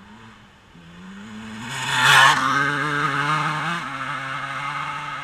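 Dirt bike engine revving hard, loudest about two seconds in as the bike passes close, then held at steady high revs while it climbs the steep trail away and grows fainter.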